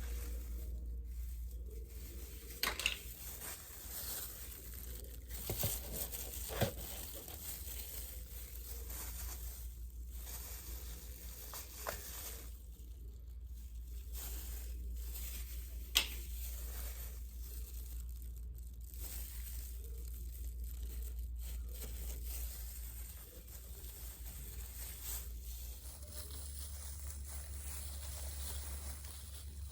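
Crispy fried chicken being torn apart and chewed close to the microphone, with irregular crackles and a few sharp crunches, over a steady low hum.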